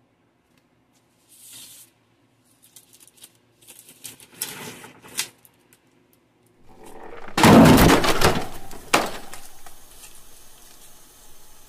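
Plastic packaging being handled: a few short rustles, then a much louder crinkling and handling burst about seven seconds in, ending in a sharp click, followed by a faint steady crackle of the small plastic bag.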